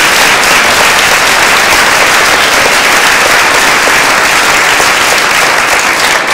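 Audience applauding, a dense steady clapping that tapers off near the end.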